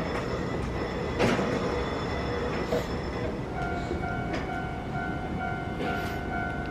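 Electric train standing at a station platform, with a steady high-pitched hum and a few scattered clicks and knocks. About three and a half seconds in, a repeating electronic beep starts, two tones pulsing about twice a second.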